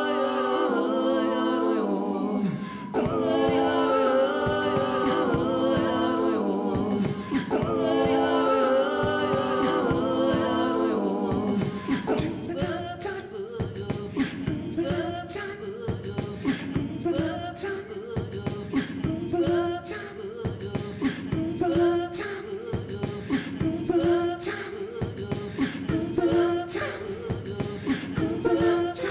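Live-looped a cappella music: layered sung vocal harmonies repeat in a loop over beatboxed percussion. About twelve seconds in, the chordal harmonies drop out, and a shorter repeating vocal phrase carries on over a busier beatbox rhythm.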